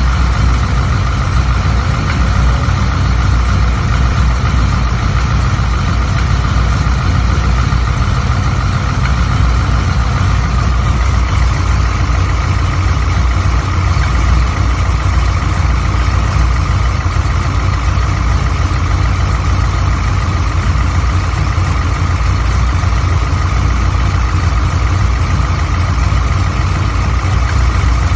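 Vehicle engine idling steadily with a constant high whine over the rumble: the weird noise that appeared after a new alternator was installed.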